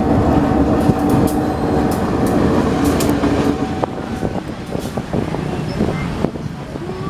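Diesel locomotive rolling over a level crossing: a steady engine drone with sharp clicks of the wheels over the crossing rails. About four seconds in it cuts off abruptly, leaving street traffic with motorbikes.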